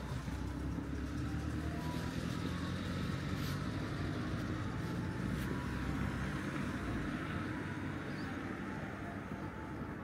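A motor vehicle's engine passing on the road: a low hum that grows louder to a peak about six seconds in, then fades.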